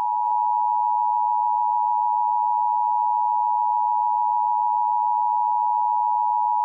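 Emergency Alert System attention signal: two steady tones sounding together (853 and 960 Hz), held unbroken at a constant level.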